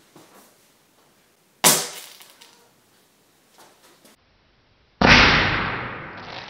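A 0.2 g TACP explosive charge in an aluminium cup goes off about five seconds in with a loud sharp bang that rings out for over a second. A shorter, quieter sharp crack comes about a second and a half in.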